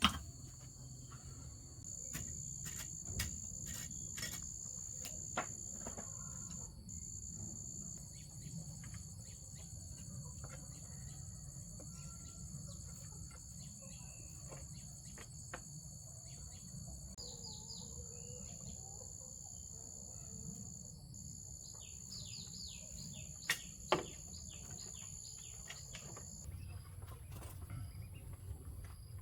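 Insects calling with a steady high-pitched drone that stops near the end, with a few short bird chirps and scattered light clicks over a low rumble.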